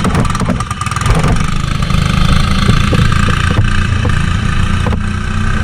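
Engine of a mud mower, a riding lawn mower built for mud, running steadily, with scattered light rattles.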